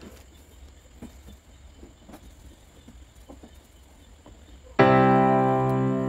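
Background piano music begins abruptly near the end with a sustained chord, after several seconds of low-level room sound broken by a few faint clicks.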